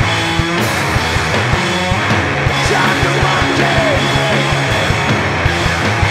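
Live two-piece rock band: distorted electric guitar over a drum kit hitting a steady, fast beat.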